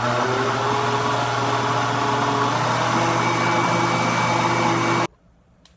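Countertop blender motor running steadily at speed, whirring a thin liquid cake batter of juice, eggs, oil and sugar, then switched off abruptly about five seconds in.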